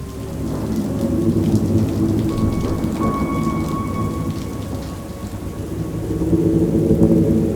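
Rain falling steadily during a thunderstorm, with low rolling thunder that swells about a second in and again near the end.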